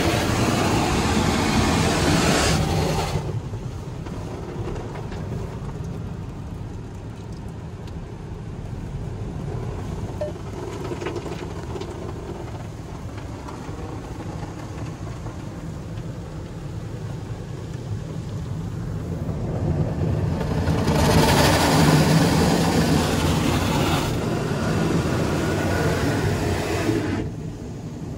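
Ryko Monarch II touch-free rollover car wash spraying the car, heard from inside the cabin. A loud rush of water spray lasts about three seconds at the start. A quieter hiss and machine hum follows, then a loud rush of spray again about twenty seconds in, which drops away a second before the end.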